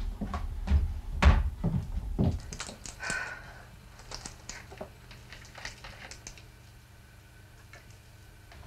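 Kitchen cupboard doors and things being handled knock and clunk several times over the first two seconds or so, then only faint rustling and small ticks remain in a quiet room.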